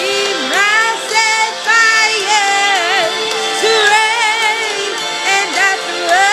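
A song with a voice singing sliding, wavering vocal runs without clear words over a steady backing track.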